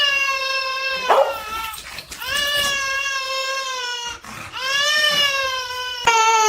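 A dog giving long, drawn-out pitched howling calls, four in a row, each about one to two seconds long, the last one sliding down in pitch.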